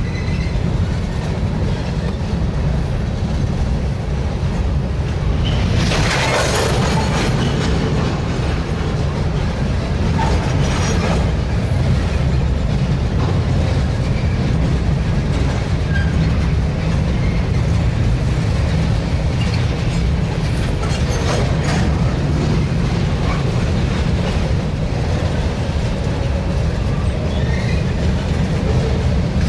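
Freight cars of a long train rolling across a steel railroad bridge: a steady low rumble with wheel clatter, and brief louder bursts of noise about six and ten seconds in.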